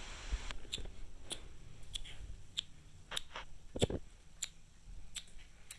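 A series of light clicks and taps from handling, about one every half second, with a louder knock about four seconds in.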